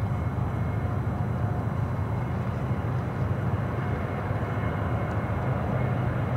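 BNSF GE ES44DC diesel locomotives leading a freight train, their engines giving a steady low drone as the train comes on.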